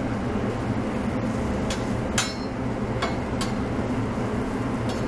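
A metal spatula scrapes and taps on a flat-top griddle about five times, the loudest about two seconds in, as shredded roast pork is spread out to warm. Under it runs a steady low kitchen hum.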